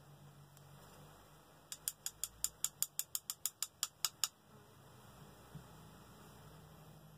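A quick, even run of about fourteen light metallic taps, about five a second, lasting a couple of seconds: an emptied 6.5 Grendel cartridge case tapped against a powder scale pan to knock out the last of its spherical powder.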